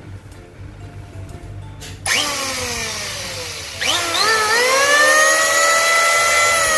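Makita electric hand planer switched on under test: a short run about two seconds in that starts to coast down, then it is started again and spins up to full speed with a high whine, holding steady and beginning to slow near the end.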